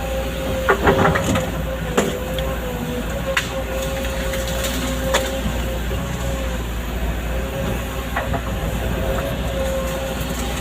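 Excavator engine running steadily with a constant hum, broken by a few sharp knocks and cracks, the loudest about a second in.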